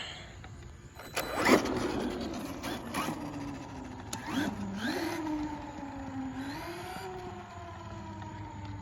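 Traxxas Maxx RC monster truck's brushless electric motor, on a 4S LiPo, whining under throttle. Its pitch rises in surges and then slowly falls toward the end. There is a loud sudden sound about a second and a half in.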